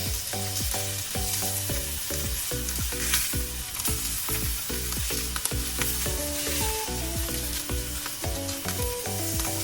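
Slices of chashu pork sizzling in a frying pan as they are reheated on both sides, over background music with a steady beat and bass.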